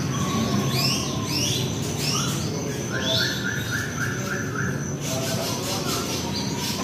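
Several caged songbirds chirping and whistling, with short curved notes overlapping one another and a quick run of six even notes about three seconds in, over a steady low hum.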